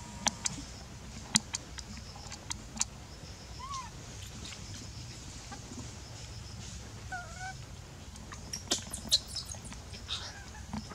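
Outdoor background with a few brief animal calls, one arched call and a doubled one later, over a low steady rumble. Scattered sharp clicks, the loudest sounds, come near the start and again about nine seconds in.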